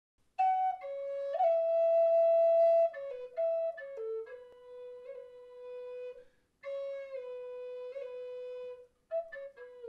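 Solo flute playing a slow melody of held notes in short phrases, with brief pauses between them.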